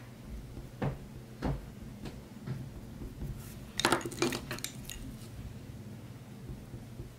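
Wooden coloured pencils clinking against one another as one is picked out of a loose pile, a quick cluster of clicks about four seconds in, after two lighter knocks about a second in.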